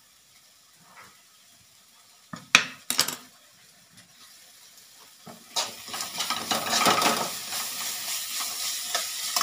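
Cooking in a kitchen pan: metal utensils clatter against the pan twice, a few seconds in. About halfway through, a steady sizzle of frying in hot oil starts and carries on.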